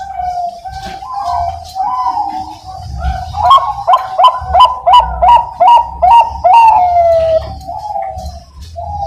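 Zebra dove (Bangkok perkutut) cooing. About midway it breaks into a quick run of loud, clipped notes, roughly two or three a second, that ends in one long falling coo. Other doves coo steadily behind it.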